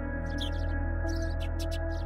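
Ambient healing music billed as 528 Hz solfeggio frequency: held synthesizer-like tones over a deep steady drone, with short high chirps sprinkled over it several times a second.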